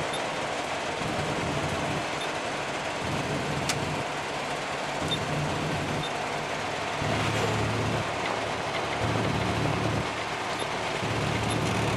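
Steady road and engine noise heard from inside a vehicle cruising on a highway, with a low drone that shifts a little in the second half.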